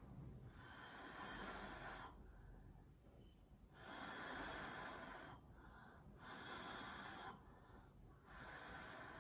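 Short puffs of air blown across wet poured acrylic paint: about five bursts of a second or so each, with brief gaps between.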